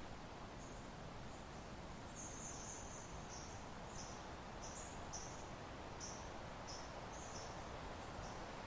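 Soft, steady wind noise in open country, with a small bird or insect giving a run of short, high chirps, about one or two a second, over it.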